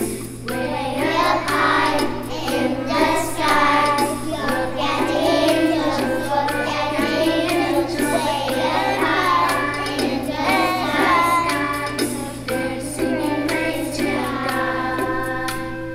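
A group of young children singing a song together in unison, as a small children's choir.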